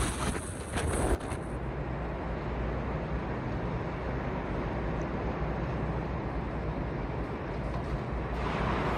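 Hurricane wind and rain: a steady roar of rain with low wind rumble buffeting the microphone. The sound changes about a second in.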